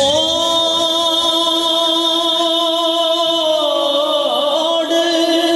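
A male voice singing a devotional kalam, holding one long note with a slight waver. About four seconds in the pitch dips and turns, then settles on another held note.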